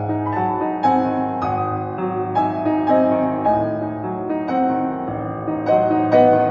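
Background piano music, single notes and chords struck about every half second.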